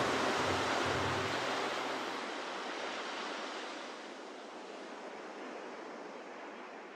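Ocean surf washing in a steady hiss that fades out gradually, while the last low notes of the music die away about two seconds in.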